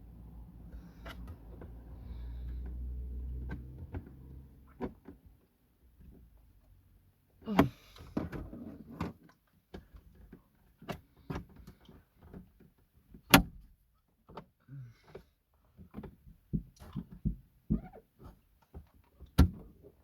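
Ford Fiesta dashboard trim and radio being worked loose by hand: a run of irregular plastic clicks, knocks and short scrapes with a few sharp snaps, the part stuck fast. A low rumble comes first, for about four seconds.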